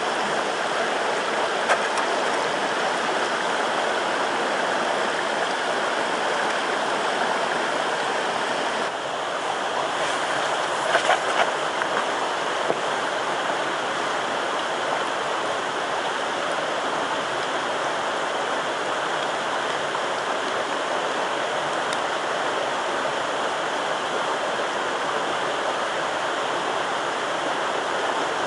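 Steady rushing of flowing water, with a few short clicks about ten to twelve seconds in.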